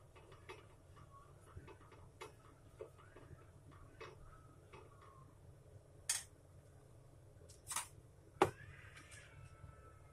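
Faint handling noises at a kitchen counter: scattered light clicks and taps, two short swishes about six and eight seconds in, and a sharp click followed by a brief ringing tone near the end.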